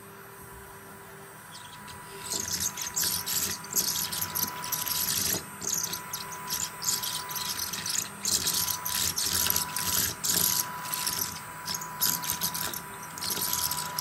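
Paladone USB desktop vacuum's tiny motor giving a faint steady whine. From about two seconds in its head sweeps back and forth over loose tea leaves on cloth, with an uneven, busy high crackle and rustle as the leaves are scraped and sucked into the nozzle.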